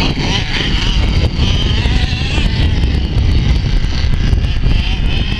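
Radio-controlled off-road buggies racing, their small high-pitched motors wavering in pitch as they speed up and slow down, over heavy wind noise on the microphone.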